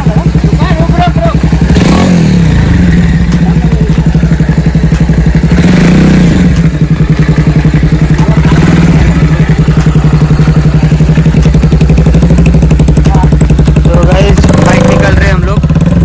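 Motorcycle engine running close by with a steady, even pulse, swelling briefly a few times as it is revved to get the bike up a muddy slope out of a stream.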